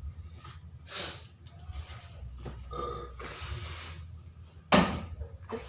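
A person with a phlegmy chest making several short, harsh throat bursts: coughs and throat sounds, the loudest coming abruptly near the end.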